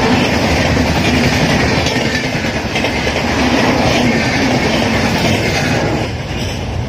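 Rear coaches of an express passenger train, LHB stock, passing at speed: a steady rush of wheel and rail noise with clickety-clack over the joints. The noise drops about six seconds in as the last car clears.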